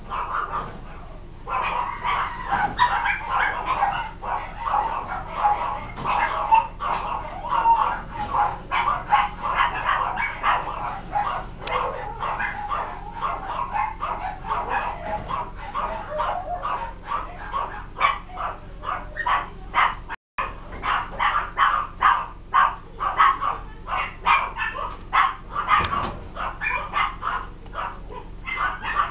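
Animal calls: a long, dense run of short, rapid cries and yips, with faint high-pitched chirps every second or two. All sound cuts out for a moment about two-thirds of the way through.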